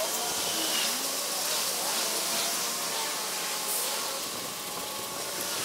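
Steady hissing outdoor background with a faint wavering motor hum running under it.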